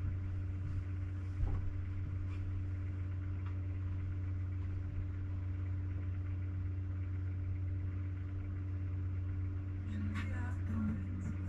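Coach's diesel engine running with a steady low hum, and a single knock about a second and a half in.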